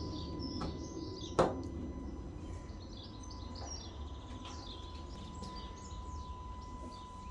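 A plastic hood-deflector mounting bracket snaps onto the bonnet edge with one sharp click about a second and a half in. Birds chirp faintly in the background.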